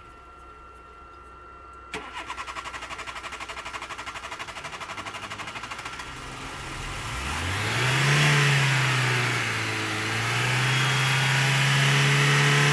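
Volkswagen car engine cranked by its starter motor in rapid even pulses for about four seconds, then catching, revving up and settling into a steady run.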